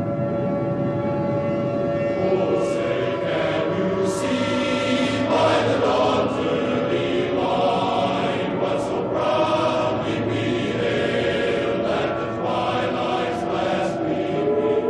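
A choir singing a national anthem in long, held notes.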